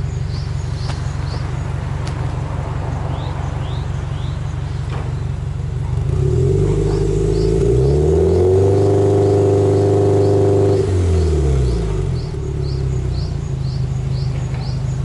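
Subaru Impreza WRX STi's turbocharged flat-four engine idling through its exhaust, then revved once with no load: about six seconds in the engine speed rises smoothly, holds high for a couple of seconds, and falls back to a steady idle.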